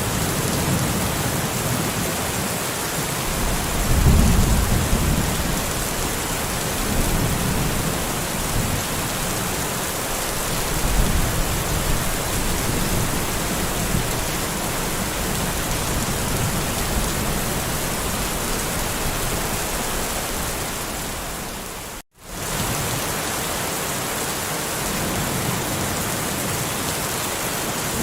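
Steady rain with low rolling thunder that swells a few seconds in and again about eleven seconds in. About three quarters of the way through, the sound cuts out for a split second and comes back as rain alone, without the thunder.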